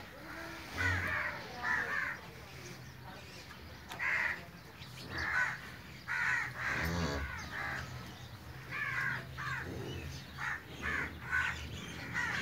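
Crows cawing over and over, short calls coming about once a second, with a faint steady low hum behind them.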